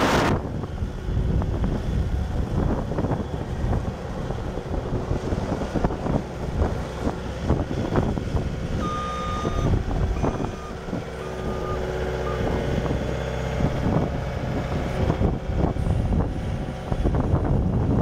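A Bobcat S250 skid steer's Kubota four-cylinder turbo diesel runs steadily as the machine drives, and its backup alarm beeps a few times around the middle while it reverses.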